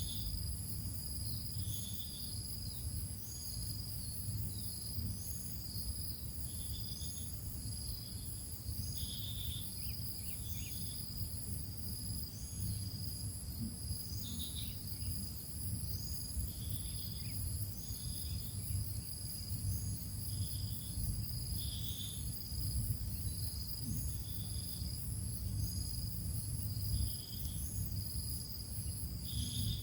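Insects chirring steadily in high, evenly repeating pulses over a low steady hum, with short high peeps every second or two.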